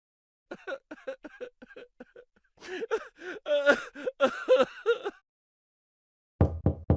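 Comic laughter sound effect: a quick run of short giggles, then a longer, louder burst of laughter that rises and falls in pitch. Near the end comes a fast string of four short, deep pops.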